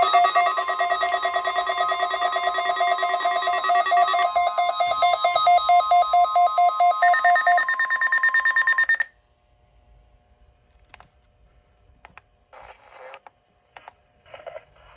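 NOAA Weather Radio test warning alarm: loud, shrill steady tones layered with a rapidly pulsing beep, changing pattern partway through and cutting off suddenly about nine seconds in. After it comes a faint hum with a few soft clicks.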